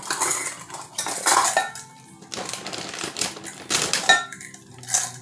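Kitchenware clattering and clinking as it is handled on a counter: a run of knocks and clicks, a few of them ringing briefly, one about two seconds in and another about four seconds in.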